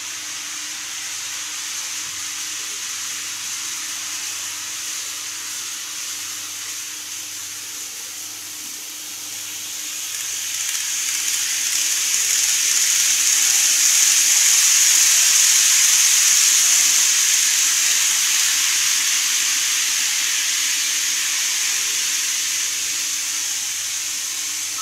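N-gauge model electric train (KATO 209 series) running along a curved elevated track: a steady high hiss that swells as the train comes past, is loudest about halfway through, then fades away.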